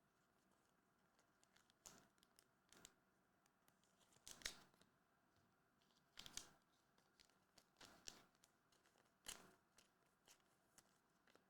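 Faint, scattered rustles and crinkles of trading cards and foil pack wrappers being handled and opened, a dozen or so short ones with the loudest about four and a half, six and nine seconds in.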